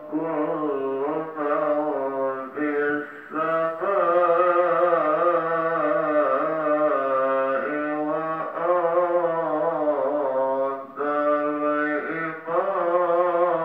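Long, low, drawn-out pitched tones that waver in pitch, in phrases broken by several short pauses.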